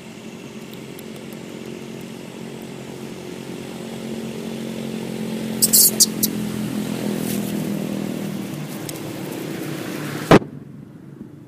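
A small engine running steadily, growing louder over several seconds, with a few sharp clicks about six seconds in. A loud click about ten seconds in, after which the engine sound drops away suddenly.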